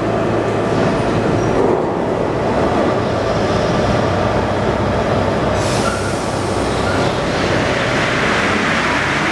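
Alstom NS-74 rubber-tyred metro train standing at an underground platform, its ventilation fans running with a steady hum. A short hiss of air comes about halfway through, then the train starts to pull away and its running noise builds near the end.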